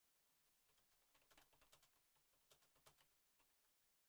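Near silence, with very faint computer keyboard typing: irregular keystrokes several times a second.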